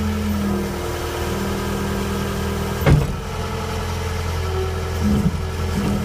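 John Deere 318 skid steer's engine running steadily. It gives a single sharp clunk about halfway through, and its tone shifts briefly near the end as the hydraulics lift the bucket.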